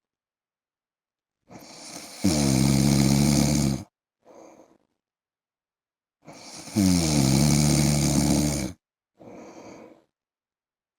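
A man snoring: two long, loud snores about four and a half seconds apart, each starting softly and building, then followed by a short faint breath out, with silence between.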